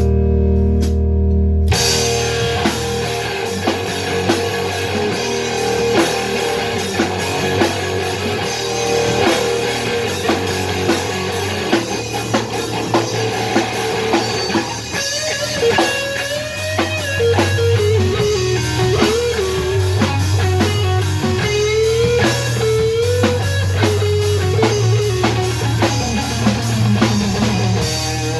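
Rock music. A held chord gives way about two seconds in to the full band, with drum kit, bass and guitar. About halfway through, a lead melody line comes in, bending up and down in pitch.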